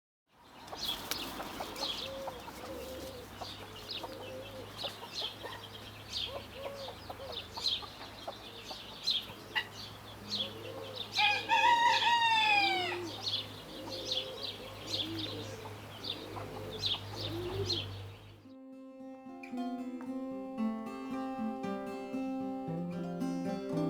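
Chickens clucking among many short high chirps, with a rooster crowing once about eleven seconds in, the loudest sound; the farmyard sound cuts off about eighteen seconds in and acoustic guitar music follows.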